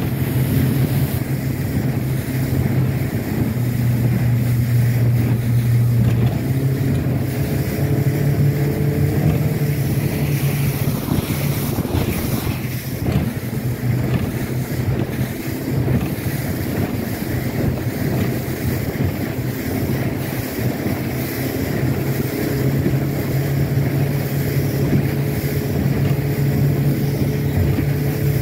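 Boat's outboard motor running at speed while towing a tube, its note dipping slightly about three seconds in and rising again a few seconds later. Wind buffets the microphone and water rushes past the hull.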